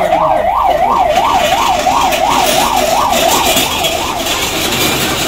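Ambulance siren wailing in a fast up-and-down sweep, about three cycles a second, that fades out about four seconds in.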